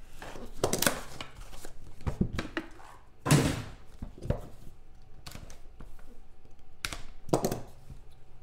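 Sealed cardboard trading-card box being slit open and handled on a table: a run of separate scrapes, rustles and knocks, the loudest about three seconds in.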